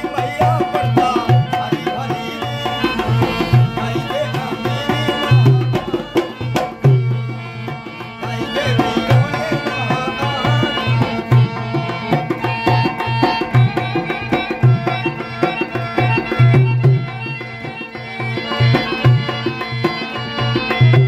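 Dholak, a two-headed barrel drum, played in a brisk, steady Rajasthani folk rhythm with a held-note melody instrument playing along.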